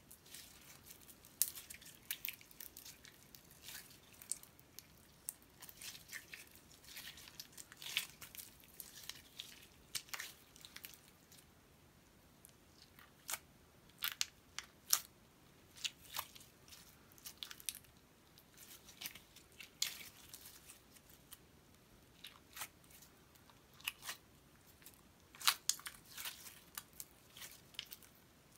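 Glitter slime squeezed and kneaded in the hands, giving irregular clusters of sharp sticky clicks and small pops.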